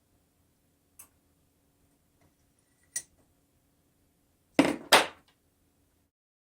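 Hard objects clicking and clattering: a faint click, a sharper click about two seconds later, then two loud clattering knocks in quick succession.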